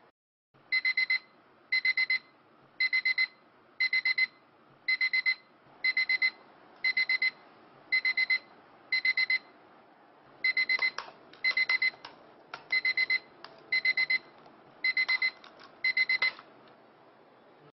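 Electronic alarm clock beeping: short runs of rapid high beeps repeating about once a second, cutting off near the end.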